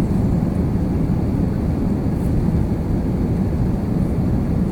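Inside the cabin of an Airbus A350 climbing just after liftoff: the steady, loud low rush of its Rolls-Royce Trent XWB turbofan engines and airflow.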